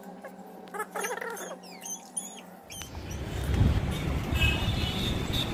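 Short high squeaky chirps over a faint steady hum. About two and a half seconds in, these give way abruptly to louder road traffic noise with wind rumble on the microphone.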